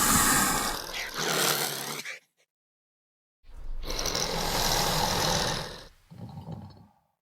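Dilophosaurus creature sound effects: a raspy, hissing roar that shifts in tone about a second in and stops, a second of silence, then a longer raspy call and a short, quieter one near the end.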